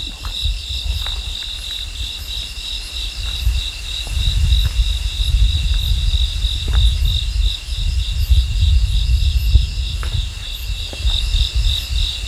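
Crickets chirping in a steady, fast-pulsing chorus. A low rumble on the microphone grows louder about four seconds in, with a few faint knocks.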